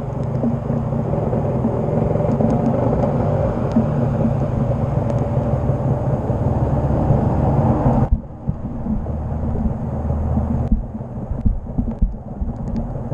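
Honda Dash 125's two-stroke engine running while the bike is ridden on a rain-soaked road, with wind and wet road noise. About eight seconds in, the road and wind noise drops away as the bike slows and stops, and the engine idles on without stalling.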